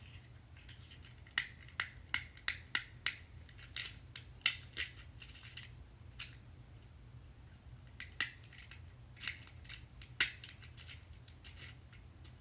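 Buttons and switches on a plastic fidget pad being clicked: sharp, loud clicks in quick irregular clusters with short pauses between them.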